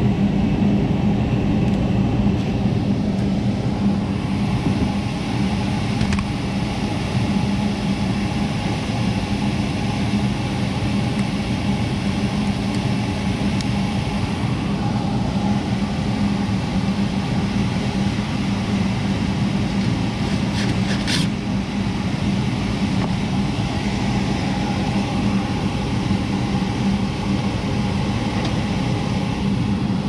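Gas furnace running steadily, a constant hum with the rush of its fans, being test-run after a pressure-switch alarm was cleared. A few light clicks about two-thirds of the way through.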